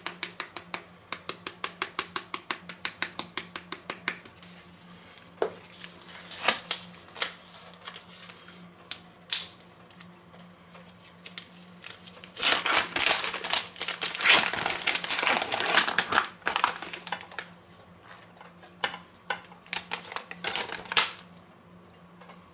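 Curry powder shaker jar shaken over toast, rattling at about five shakes a second for the first few seconds. Later, around the middle, a stretch of plastic food packaging crinkling as a packet of sliced ham is opened and handled.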